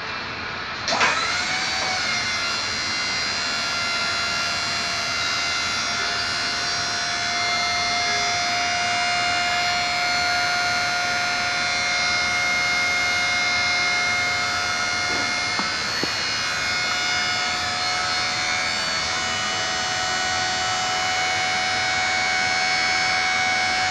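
Portable geotechnical drill rig starts up about a second in, its pitch rising, then runs steadily with a high whine over mechanical noise while advancing the boring.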